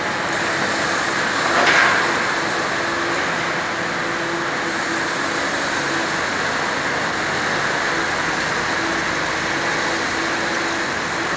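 Diesel engine of an old FMC Link-Belt crawler crane running loudly and steadily under work, with a brief louder surge about two seconds in.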